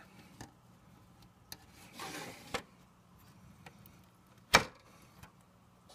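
A circuit card being pushed into an S-100 motherboard's edge-connector slot: a soft scraping about two seconds in, then one sharp click as the card seats, about four and a half seconds in.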